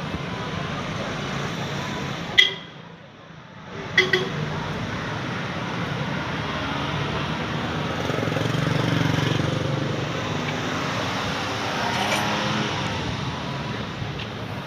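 Steady street traffic noise, with two sharp metallic clinks about two and a half and four seconds in.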